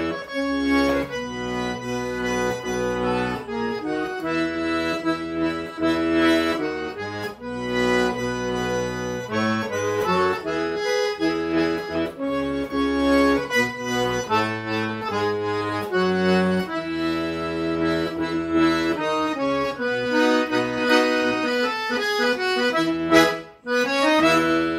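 Accordion playing an instrumental passage of a xote, a melody and chords over steady bass notes, with no singing. A brief break comes about a second before the end, followed by a quick run of notes.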